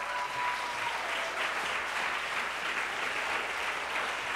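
Audience applauding steadily, with a held high call from someone in the crowd that fades out in the first second and a half.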